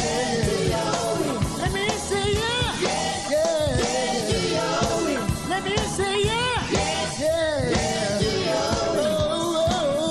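Recorded gospel song by a young male vocal group: a lead voice sliding and wavering between notes with instrumental backing and a steady beat.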